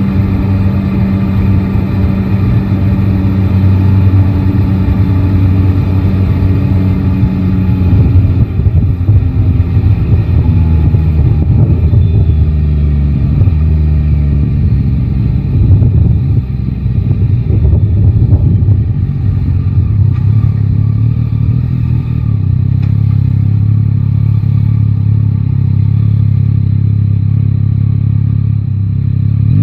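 Yamaha Tracer 9 GT's three-cylinder engine running on the move: a steady engine note for the first several seconds, then the pitch shifting up and down with throttle changes through the middle, settling back to a steady note, and rising again right at the end.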